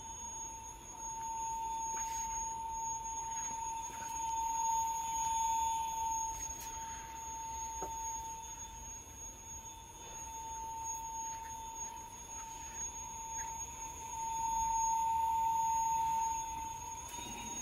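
AC servo motor run by a repaired Yaskawa CACR-20BB1AM servo drive, giving a steady whine that swells and fades in loudness, with a fainter high-pitched whine above it; it stops near the end. This is a test run after an overcurrent fault, and the drive runs the motor without tripping an alarm.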